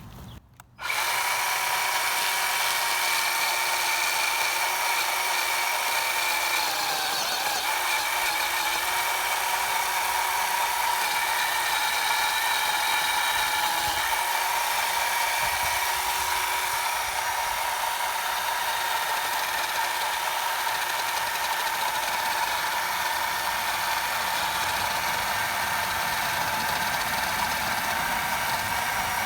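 WORX 20V Power Share 10-inch cordless electric chainsaw starting about a second in and running steadily through wood, a high electric whine that dips briefly in pitch about seven seconds in.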